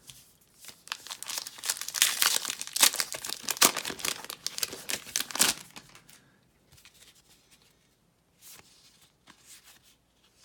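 A baseball card pack wrapper being torn open and crinkled for about five seconds, followed by a few faint rustles.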